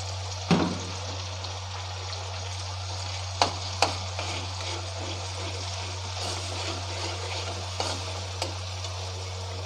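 Sliced onions sizzling steadily as they fry in mustard oil in an aluminium kadai, with a few sharp knocks of the spatula against the pan as they are stirred.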